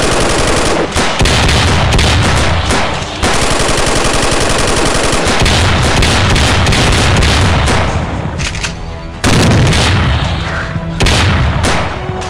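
Rapid, near-continuous automatic gunfire from several guns in a shootout, easing off briefly about three seconds in and again around eight seconds, then starting up again loudly.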